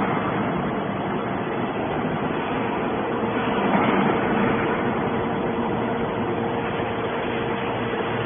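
Hydraulic scrap metal baler running: steady machine noise with a held hum, growing a little louder for about a second near the middle.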